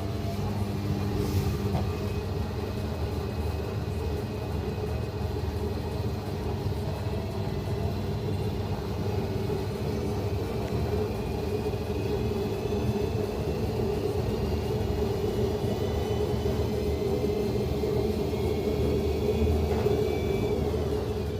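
Washing machine drum spinning with a loud, steady rumble from a badly worn drum bearing that needs replacing urgently. A faint whine slowly rises in pitch through the second half as the drum spins faster.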